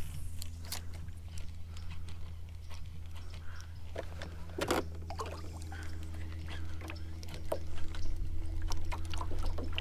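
Baitcasting reel being cranked to retrieve a lure, with scattered small clicks and handling knocks and one louder knock about halfway through, over a steady low hum.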